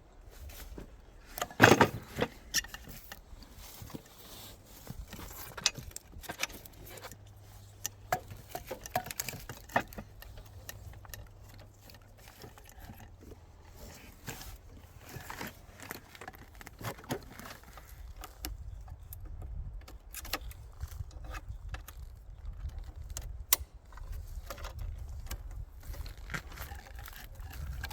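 Irregular clicks, knocks and clatter of objects being handled, with one sharp loud knock about two seconds in. A low rumble rises from about two-thirds of the way through.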